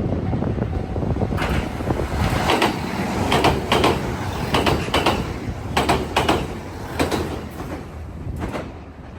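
A 521 series electric train passing, its wheels clattering over the rail joints in a quick, uneven run of clacks that starts about a second and a half in and dies away near the end, over a steady rumble.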